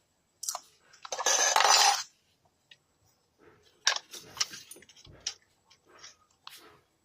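Small parts and tools being handled: clinks and light knocks, with a loud scraping or rustling that lasts about a second, starting about a second in.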